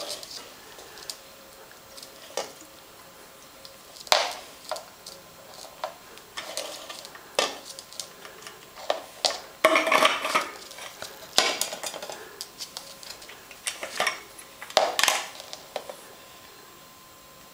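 A ferret drinking from a plastic water bottle held on its side on a wooden floor: irregular sharp clicks and clinks of the bottle at its mouth, busiest about ten seconds in.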